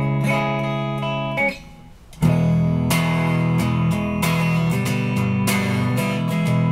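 Electric guitar strumming sustained chords through Fairfield Circuitry effects pedals. The chord dies away about a second and a half in, and a new one is struck just after two seconds and rings on.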